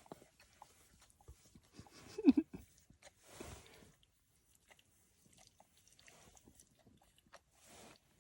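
A puppy's short whine about two seconds in, amid faint scattered clicks and soft rustles.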